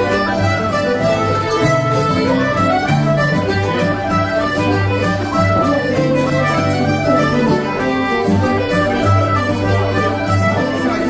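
Irish traditional dance tune played together by a session group: concertina and fiddle carrying the melody over strummed acoustic guitar, with whistle and mandolin joining in.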